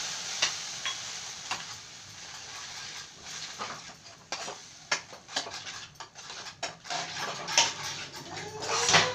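A steel spoon scrapes and clicks irregularly against a frying pan as tomato purée and onion paste are stirred. A soft sizzle fades over the first couple of seconds.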